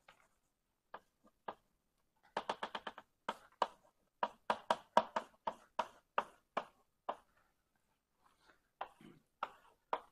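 Chalk writing on a blackboard: a quick run of short, sharp taps and strokes as an equation is written, a pause, then a few more strokes near the end.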